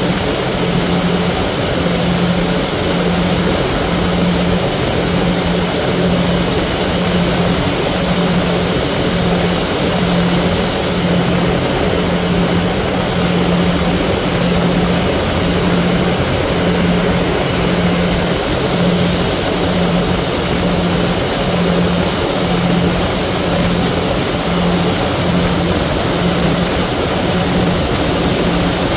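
Ferry engine running steadily underway, a low hum that throbs about once a second, over a constant rush of wind and water.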